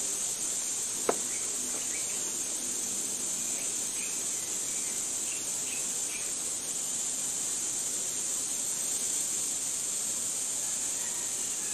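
Steady high-pitched drone of insects, cricket-like, with a few faint short chirps over it. A single sharp click about a second in.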